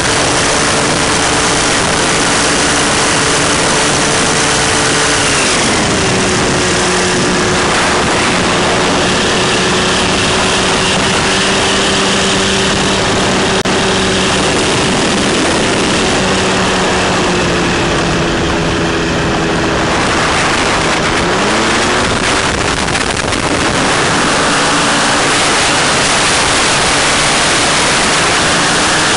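Paramotor trike's Rotax 462 two-stroke twin engine and propeller running in flight, over a steady rush of wind. About five seconds in the engine is throttled back to a lower steady pitch, and about twenty-one seconds in it is opened up again to its first pitch.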